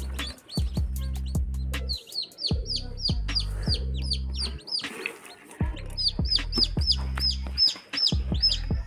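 Newly hatched chicks peeping, a rapid run of short high chirps at about three or four a second, densest in the second half.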